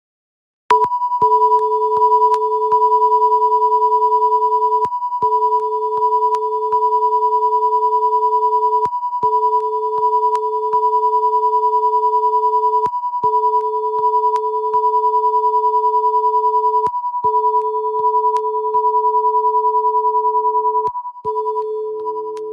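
Broadcast line-up test tones from a Hitomi MatchBox audio-video sync test signal: a steady 1 kHz tone over a lower tone just under 500 Hz that drops out briefly about every four seconds, with short clicks throughout. The tones start abruptly under a second in, and fainter extra tones join near the end.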